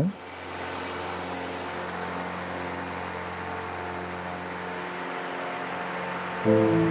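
Steady aircraft cockpit noise during a runway roll: an even rushing hiss with a low hum underneath. Music comes in near the end.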